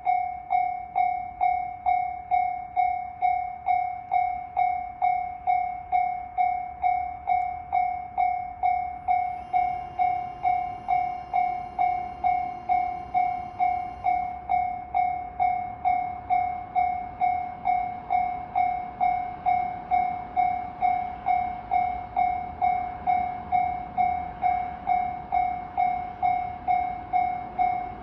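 Japanese railroad crossing warning bell ringing, a sharp electronic 'kan-kan' ding repeated evenly about twice a second, signalling that a train is approaching and the crossing is closed.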